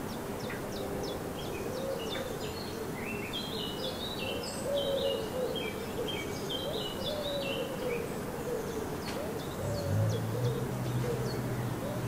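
Garden songbirds singing: a run of short high notes stepping up and down in the middle, over a lower wavering call. A low steady hum comes in about ten seconds in.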